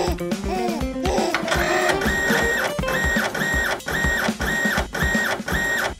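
Background music, then from about a second in a printer printing: a mechanical whir that repeats about twice a second.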